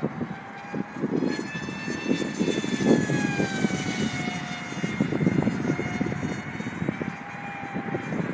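The electric motor and pusher propeller of a Multiplex Funjet Ultra RC model jet in flight, a thin high whine that dips in pitch a few seconds in as it passes. Gusty wind buffets the microphone throughout.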